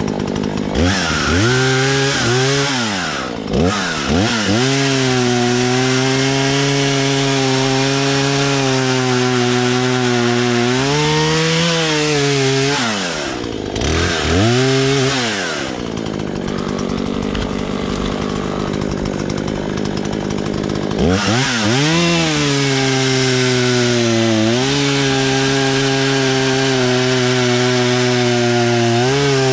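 Husqvarna 120 Mark III two-stroke chainsaw running at full throttle, cutting through a downed tree. The engine pitch dips and climbs back several times as the throttle is let off and squeezed again. There is a quieter spell of about five seconds past the middle before it revs up again for the next cut.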